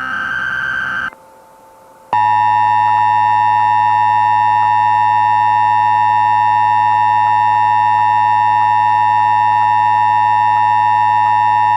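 Emergency Alert System activation: the last of the short, harsh digital SAME header bursts, about a second long, then after a second's pause the steady EAS two-tone attention signal (853 and 960 Hz) sounding for about ten seconds before cutting off.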